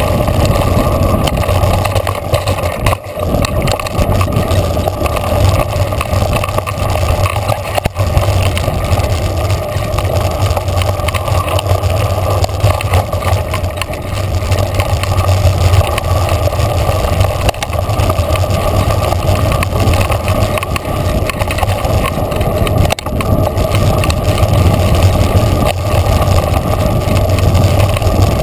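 Continuous rush of wind over the camera microphone mixed with the rumble of mountain bike tyres running fast over a dirt singletrack.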